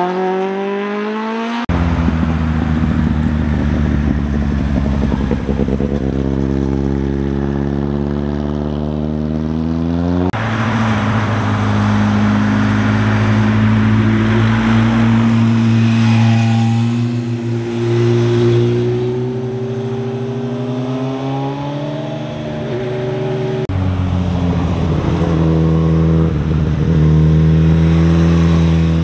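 Sport motorcycle engines accelerating through bends, their pitch climbing as they rev and dropping at gear changes. The sound changes abruptly a few times as one bike's pass gives way to another's.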